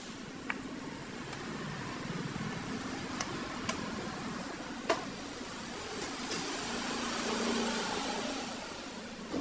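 A few sharp, light clicks over a steady background hiss, with a broader rustling swell in the second half.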